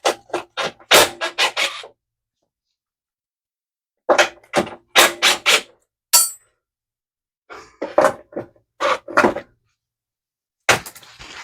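A socket wrench on the mower's bolts: four bursts of quick clicks and knocks from the tool on metal, with a short bright metallic ring about six seconds in.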